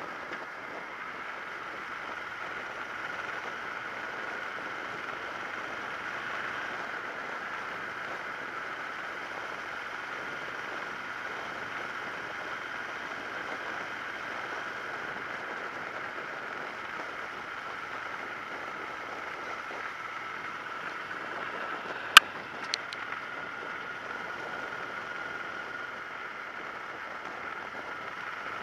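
Steady wind rush and road noise on a helmet-mounted action camera on a moving motorcycle, with one sharp click about three-quarters of the way through and a fainter tick just after it.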